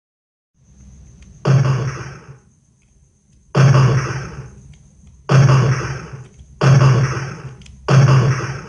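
Gunshot sound effect: five single shots, each starting sharply and dying away over about a second, fired at uneven gaps of one and a half to two seconds.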